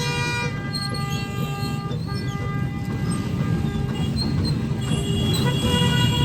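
Horns blown in long, held notes, several pitches at once, shifting now and then, over the noise of a large crowd.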